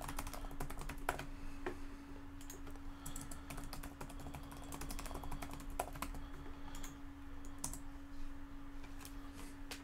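Typing on a computer keyboard: irregular key clicks as code is entered, over a steady low hum.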